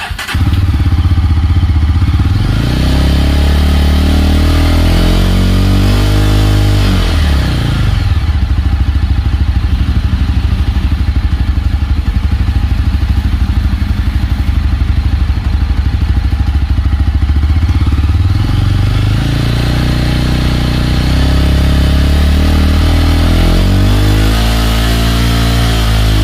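Yezdi Roadster's 334 cc single-cylinder engine revved through its exhaust. The revs climb slowly for a few seconds and drop back, then it idles with a fast, even beat for about ten seconds before being revved up again and held near the end.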